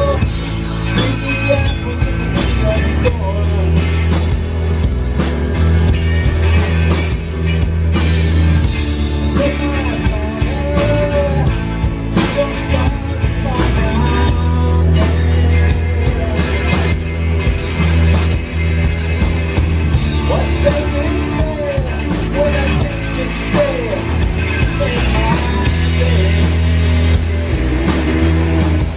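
A live rock band playing, with a steady drum beat, heavy bass and pitch-bending lead lines in the middle range.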